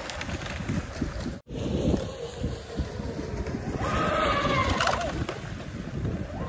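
Wind buffeting the microphone, with the high whine of a Pro Boat Miss Geico RC catamaran's twin brushless electric motors running at speed across the water, swelling and fading about four seconds in.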